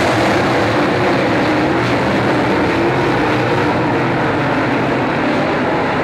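Several dirt late model race cars' V8 engines running at racing speed on a dirt oval, a loud, steady blend of engine noise.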